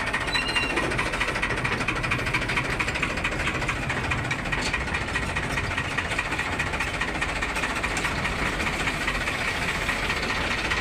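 Farmtrac tractor's diesel engine running steadily as the tractor drives along, heard up close from the back of the tractor.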